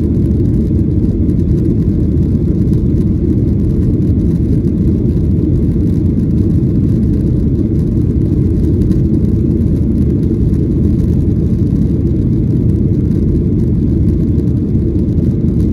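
Steady low rumble of a Boeing 737-800's CFM56-7B engines and slipstream heard inside the passenger cabin during the climb after takeoff.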